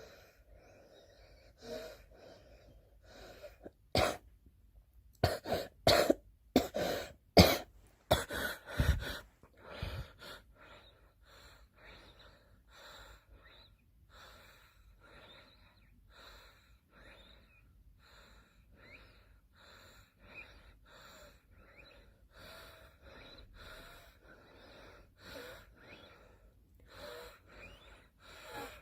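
A girl coughing: one loud cough about four seconds in, then a fit of loud coughs over the next few seconds. After that comes a long run of fainter, quicker coughs and breaths, nearly two a second.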